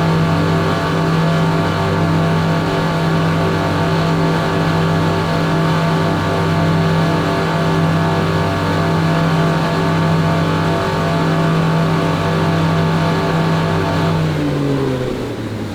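Yamaha V8 boat engines running at a steady high speed, open throttle, then the pitch falling as the throttle comes off near the end.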